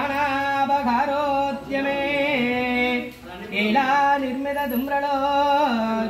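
A single voice singing a Hindu devotional archana song in long held notes, in phrases broken by short pauses about every one and a half to two and a half seconds, with no instruments apparent.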